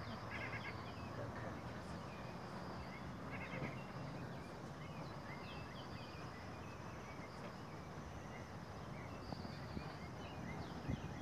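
Quiet outdoor ambience: a steady high insect drone with scattered faint bird chirps. There are a few soft knocks near the end.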